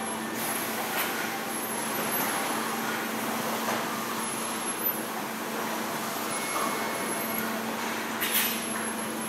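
Steady factory-floor machinery noise with a constant low hum, broken by a few short knocks, the loudest about eight seconds in.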